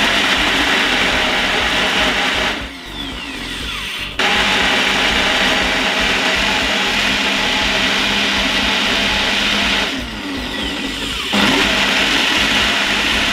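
Ninja personal blender running at full speed, grinding chunks of sugar cane with water and ginger. It runs in three spells, dropping back twice for a second or so, each time with a falling whine as the motor slows, before speeding up again.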